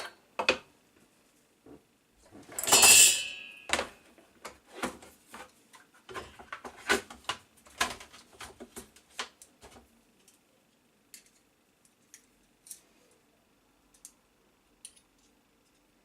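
Small metal parts and tools being handled: a run of clinks and knocks, dense for about ten seconds and then sparse, with a louder rattling burst lasting about a second around three seconds in.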